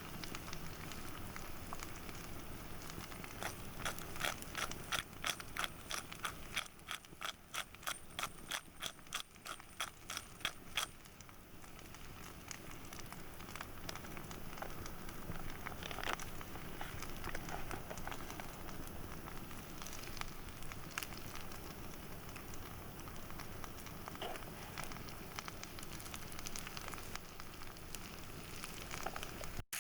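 A run of sharp, evenly spaced clicks, about two or three a second, for several seconds over the faint crackle of a campfire cooking a pan of fried potatoes; after that only the faint crackle with an occasional tick.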